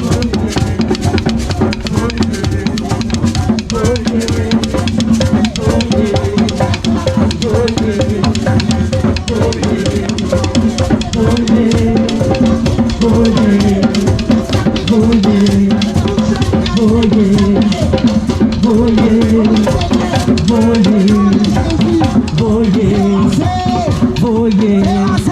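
Loud instrumental gospel music with a full drum kit playing a steady beat and a melody over it.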